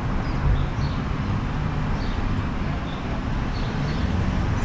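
Can-Am Ryker Rally three-wheeler's engine running steadily on the move, a low rumble under a constant rush of road and wind noise.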